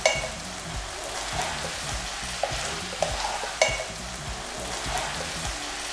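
Marinated chicken pieces sizzling in a nonstick kadai as a spatula stirs them, with several sharp knocks of the spatula against the pan.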